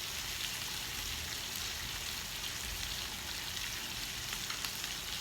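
Beef sizzling on a hot grill pan, a steady hiss with small crackles.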